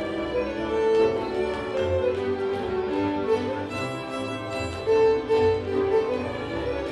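Hungarian folk dance music led by a fiddle, with bowed low strings playing a pulsing accompaniment.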